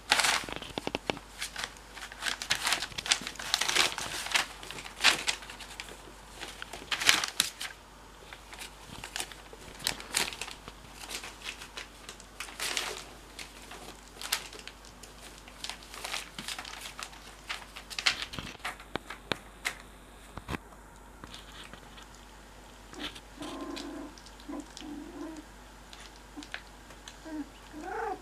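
Newspaper crinkling and rustling in irregular bursts as young cocker spaniel puppies crawl over it. Near the end come a few short puppy whimpers.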